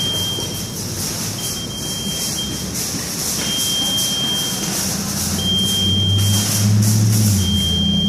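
High-pitched electronic beep sounding in a steady on-off pattern, each beep a little over a second long, about every two seconds, over arcade noise. A low hum comes up about five seconds in and fades near the end.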